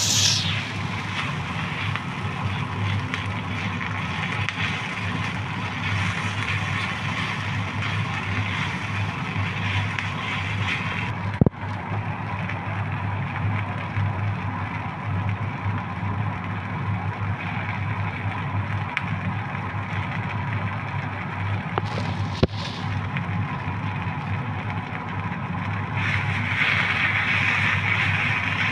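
Sliced shallots and chilli spice paste sizzling in a little hot oil in a wok while being stir-fried with a spatula, over a steady low hum. The sizzle grows louder near the end, and there are two brief clicks, about a third and two thirds of the way through.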